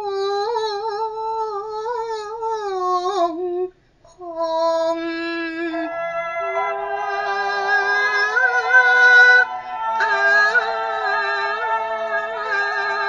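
A woman singing a Cantonese opera aria in long, drawn-out, wavering notes, with a brief break about three and a half seconds in. Instrumental accompaniment joins under the voice about six seconds in.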